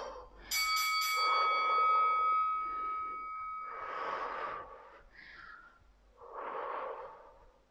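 A woman breathing heavily close to a clip-on microphone, slow breaths as she gets her wind back after cardio exercise. About half a second in, a bell-like ding rings out and fades away over about four seconds.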